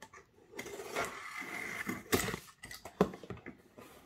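Hands handling a cardboard shipping box: a rubbing, scraping stretch for about a second and a half, then two sharp knocks against the box.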